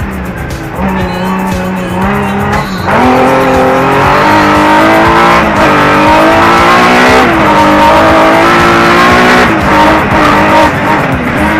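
Rallycross car's engine, loud from inside the cockpit, climbing in pitch under full throttle and dropping sharply at each change as the car shifts up from second through fourth gear.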